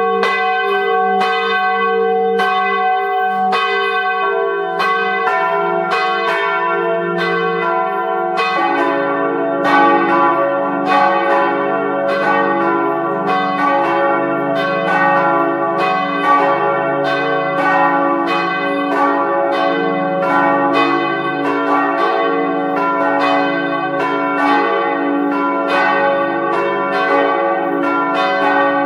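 A peal of church bells, each struck in quick, even succession and ringing on. About a third of the way in, lower-pitched bells join and the peal grows fuller and denser.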